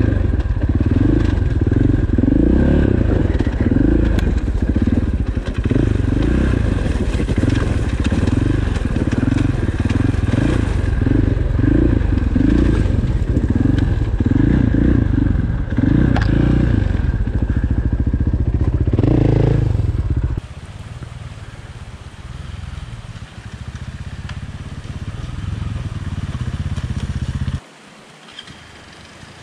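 Dirt bike engine running at low throttle on a rocky downhill trail, its sound rising and falling in quick regular surges, with gravel crunching under the tyres. About two-thirds through it drops to a quieter steady run, and near the end it falls away to faint background.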